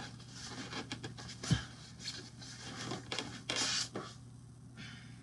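Packaging being handled, with rustling and scraping as a statue part is taken out. There is a dull knock about one and a half seconds in and a louder rustle just before four seconds.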